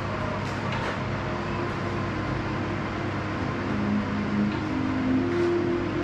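Mini stepper being worked in a steady stepping rhythm over a constant whir of background noise, with a few faint knocks from the steps and, from about halfway, short squeaky tones that change pitch.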